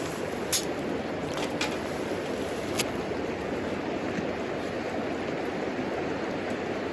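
Wood fire burning in a homemade wood stove, crackling with a few sharp pops, the loudest about half a second in, over a steady rushing sound.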